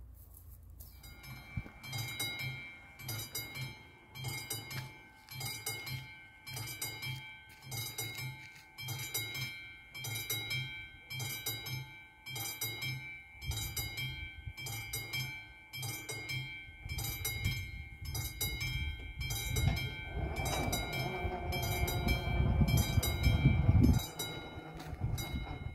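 A level crossing's classic warning bell ringing in even strokes, about two a second, warning of an approaching train. From about halfway through, a freight train of container wagons passes over the crossing, its rumble growing to be the loudest sound near the end while the bell keeps ringing.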